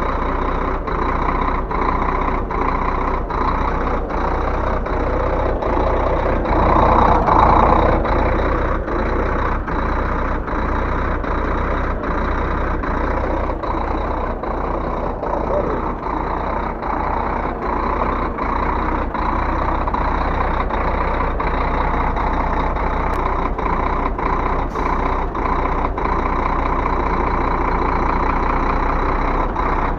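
Truck diesel engine running at low revs while the truck is driven up onto wooden blocks, rising briefly about seven seconds in, with faint regular clicking through it.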